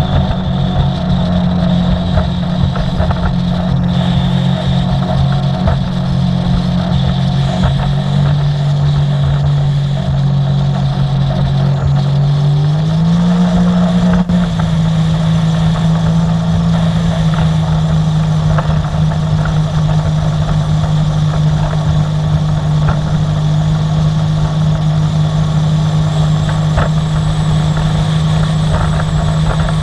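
Sea-Doo personal watercraft engine running steadily under way, a loud, even drone whose pitch shifts up slightly about halfway through as the throttle changes, then holds.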